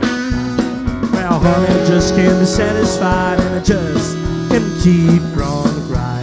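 Live electric blues band playing a Chicago blues shuffle: electric guitar with gliding, sliding notes over drums and bass.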